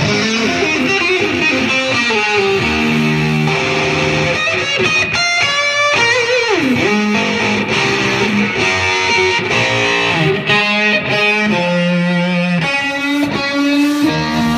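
Electric guitar played through a Black Cat Super Fuzz pedal into a blackface Fender reverb amp: fuzzy single-note lead phrases with held notes, and one note about six seconds in that swoops down in pitch and back up.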